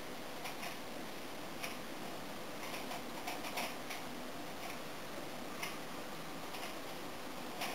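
Steady hiss of rain with irregular sharp ticks, about eight of them, of drops striking the corrugated roof.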